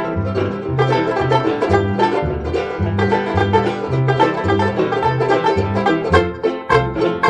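Instrumental background music with quickly picked notes over a bass line that steps between notes about twice a second.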